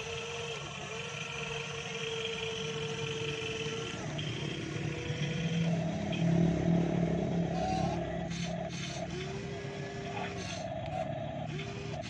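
Electric motors of a radio-controlled Kobelco SK200 model excavator whining as it swings its boom and moves its arm and bucket. The whine comes in short spells that start, stop and bend in pitch, with a few clicks in the second half.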